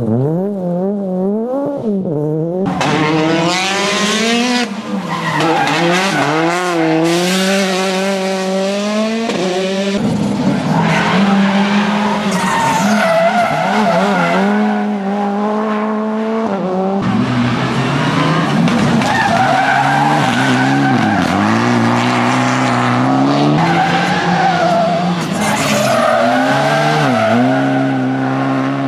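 Rally car engines revving hard, the pitch climbing and dropping again and again through gear changes and corners, with tyre and gravel noise beneath. The cars heard include a Škoda Fabia R5 with its turbocharged four-cylinder.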